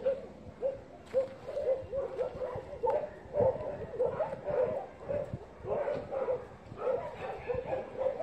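Dog barking over and over in short, high yips, two or three a second with brief pauses.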